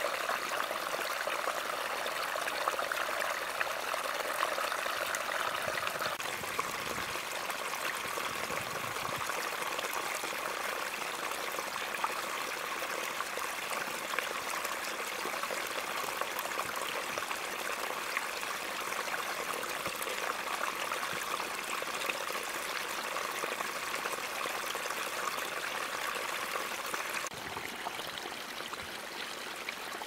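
Small brook of water trickling steadily over rocks. The sound shifts a little about six seconds in and drops slightly near the end.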